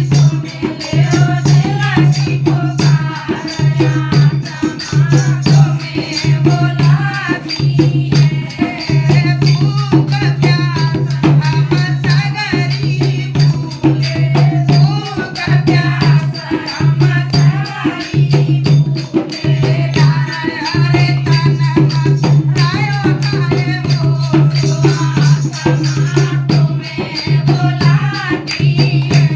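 Devotional Hindi song (bhajan): a melodic voice line over a steady low drone, with quick, even rattle-like percussion.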